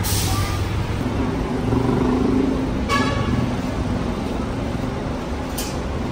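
Bus engines running in a terminal yard, a steady low rumble, with a short horn toot about three seconds in.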